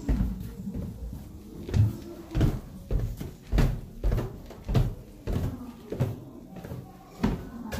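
Footsteps on wooden stairs and then on wooden floorboards: hollow thuds at a steady walking pace, a little under two steps a second.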